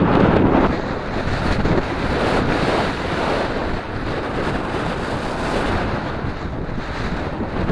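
Wind blowing hard across the microphone of a moving bicycle rider: a loud, steady rushing noise that is strongest in the first second.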